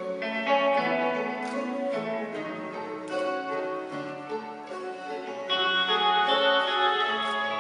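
Instrumental passage of a ballad played live by a small band: acoustic guitar and violins with electric guitar and bass, no voice, swelling louder about five seconds in.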